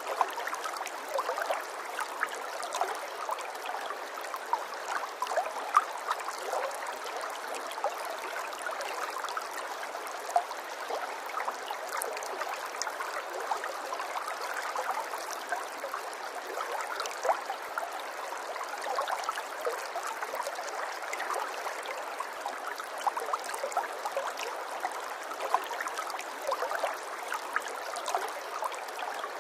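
A small stream of water flowing and babbling steadily, with many small gurgles and splashes.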